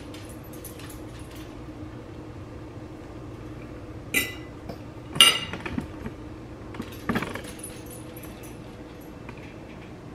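Metal cutlery clinking against a ceramic dinner plate: two sharp ringing clinks about four and five seconds in, the second the loudest, followed by a few lighter ticks and a softer knock about seven seconds in, over a steady low hum.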